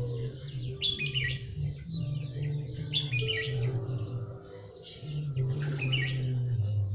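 Songbird chirping short, quick phrases that repeat every two seconds or so over steady low tones: bird song used as a trapping lure call.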